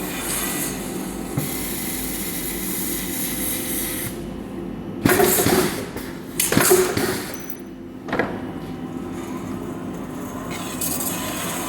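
Blade-preparation machinery running with a steady hum, with two loud, harsh, noisy bursts about five and six and a half seconds in, each lasting under a second.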